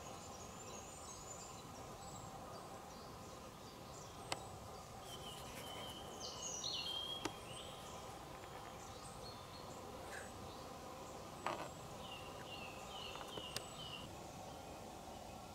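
Outdoor ambience: small birds chirping and calling over a steady background hum, with a few sharp clicks and a short rustle about two-thirds of the way through.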